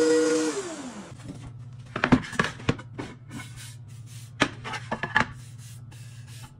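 Benchtop thickness planer's motor spinning down, its pitch falling and fading within the first second. Then cherry boards are laid down and stacked on a table, a string of sharp wooden knocks over a low steady hum.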